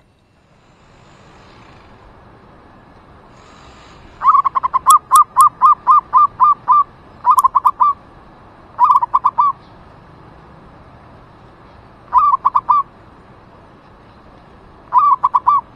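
Zebra dove (merbuk) cooing loudly in rapid staccato notes. A long run of quick notes comes about four seconds in, followed by four shorter bursts of three to five notes.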